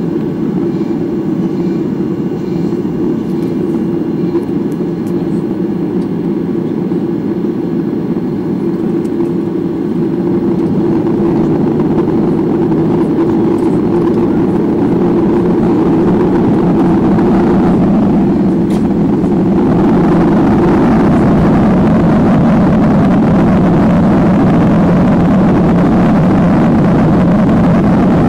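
Cabin noise of a Boeing 737-800 airliner taxiing: its CFM56 jet engines and the rolling airframe make a steady rumble. The rumble grows louder in two steps, about ten and twenty seconds in.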